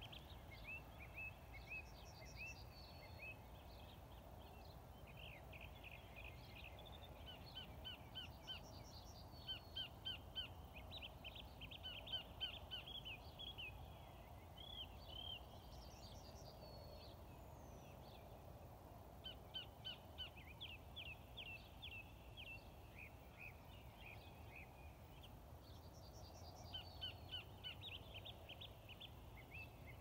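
Faint birdsong at dawn. Short phrases of quick, high, repeated chirps come every few seconds, over a low steady rumble.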